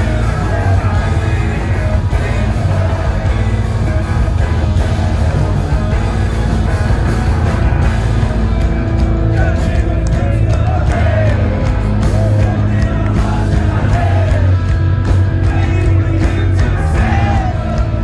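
Live rock band playing loud and steady: electric guitars, bass guitar and drums, with the lead singer's vocals over them, amplified through the PA and heard from the crowd.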